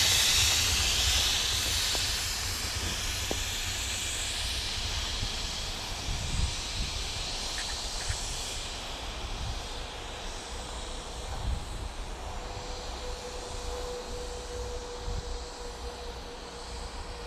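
Air hissing as it escapes at the rear of a slow freight train, fading away over the first few seconds as the end of the train moves off, over a low rumble. About ten seconds in, a steady hum comes in.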